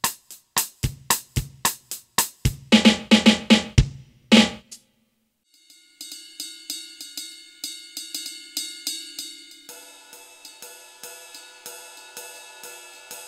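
DKX-580 electronic drum kit sounding through its module, played with sticks. First comes a drum pattern with kick-drum thumps and a quick flurry of hits about three seconds in, stopping at about four and a half seconds. After a short gap, a cymbal voice is struck in a steady run of quick hits, its ringing growing fuller at about ten seconds in.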